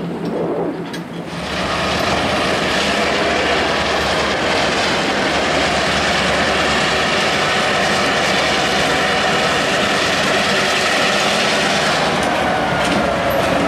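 Diesel-electric locomotives of a switching move running close by, their engines a loud, steady drone. A quieter locomotive idling and approaching is heard in the first second or so.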